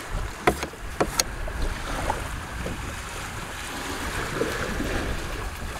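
Outdoor boat ambience: wind buffeting the microphone with a steady low rumble, and water washing around the hull. Three sharp clicks come in the first second or so.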